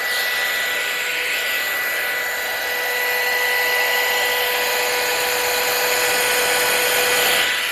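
Hot air brush (a hair dryer and styler in one) running steadily: an electric motor's whine over the rush of its fan blowing air, a little louder from about three seconds in.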